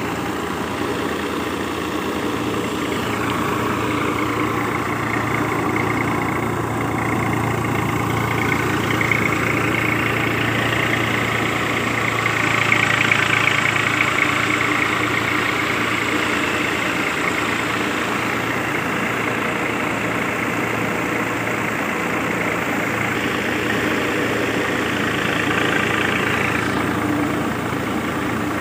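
Swaraj 744 FE diesel tractor running steadily while it drives a wheat thresher, the thresher's drum and fan turning as sheaves are fed in. A brighter rushing sound joins a few seconds in and falls away near the end.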